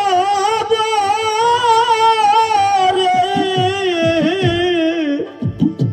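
Bengali Baul folk song: a male voice holds one long sung note with a wavering vibrato over a harmonium, while drum strokes that fall in pitch join in the second half. The held note ends about five seconds in, leaving a brief gap of drum strokes.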